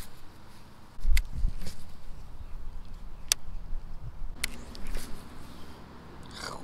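Baitcasting rod and reel being cast and retrieved: a few sharp clicks from the reel, with a low rumble of wind on the microphone that starts suddenly about a second in, and a brief swish near the end.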